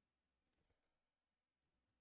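Near silence: room tone, with one very faint click a little past a third of the way in.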